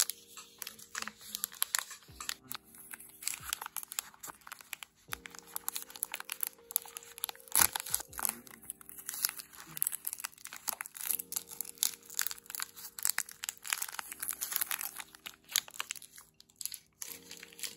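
Plastic wrapper of a B-ready wafer bar crinkling and tearing as it is pulled open by hand, in many quick crackles. Soft background music with sustained chords plays underneath.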